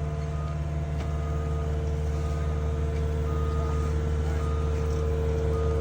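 Dump truck's diesel engine running steadily with a constant whine over it, while it raises its bed and tows an asphalt drag box.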